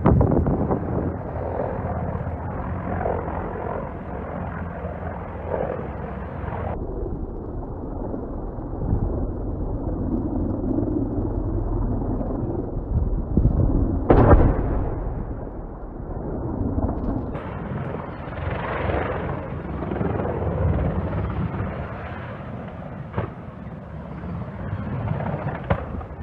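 Wind rumbling on a phone microphone, with a sudden loud bang about 14 seconds in and another sharp hit at the very start.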